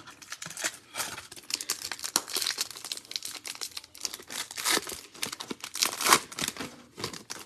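Foil wrapper of an Upper Deck hockey card pack being torn open and handled: dense, irregular crinkling and crackling that stops just before the end.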